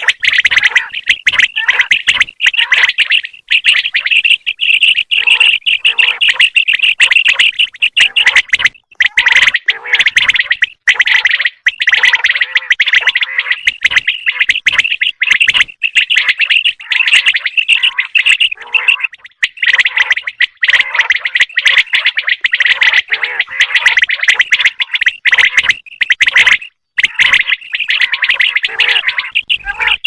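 Common quail calling: a loud, rapid, near-continuous run of high-pitched chirping notes, broken by a few short pauses.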